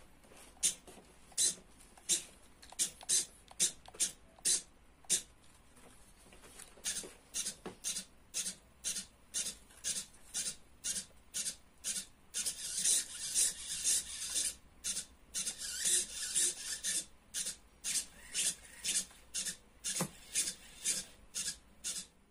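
Hobby servo motors driving a robot leg's joints, whirring in short rasping bursts as the leg steps back and forth. At first about two bursts a second, then closer together and louder for several seconds in the middle, then spaced bursts again.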